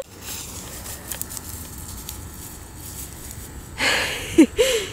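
Wind rumbling on a phone microphone, with faint rustling and ticks. About four seconds in comes a brief vocal sound with a gliding pitch.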